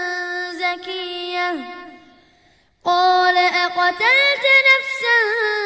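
A child's voice reciting the Quran in a melodic tajweed chant. A long held note slides down and fades about a second and a half in, there is a short pause for breath, and then the chanting resumes with wavering, ornamented pitch.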